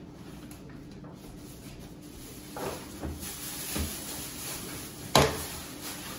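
Kitchen cabinet door shut with a sharp knock about five seconds in, after a few softer knocks and the rustle of a plastic grocery bag.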